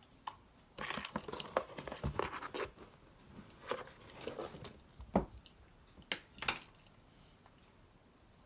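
Homemade slime being squished and stretched by hand: a run of sticky crackles and pops that stops about six and a half seconds in.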